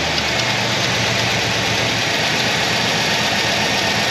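Chevrolet Silverado V8 idling steadily just after starting. It runs evenly, with no exhaust-leak ticking and no misfire, now that its exhaust manifolds are bolted back on.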